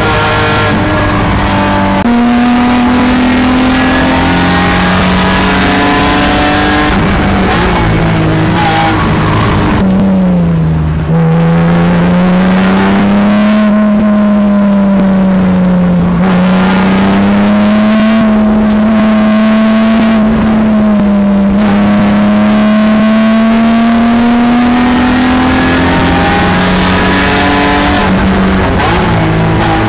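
BMW E36 race car's engine at full racing load, heard from the cockpit. Its pitch drops about ten seconds in as the car brakes and downshifts for a slow corner, then climbs steadily as it accelerates hard out of it, with a gear change near the end.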